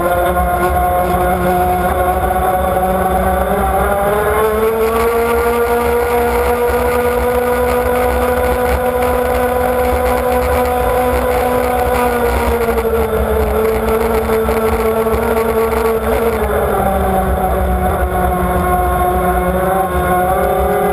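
Racing powerboat's engine heard from on board, running at speed over steady water noise. Its pitch rises about four seconds in, holds, eases slightly around twelve seconds and drops back at about sixteen seconds.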